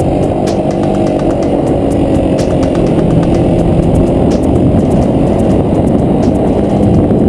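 Quad bike (ATV) engine running steadily while riding over sand, its pitch shifting slightly, with scattered clicks and rattles.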